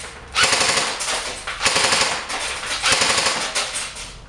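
UTG AK-74M airsoft rifle firing on full auto in about three bursts of rapid shots, stopping shortly before the end.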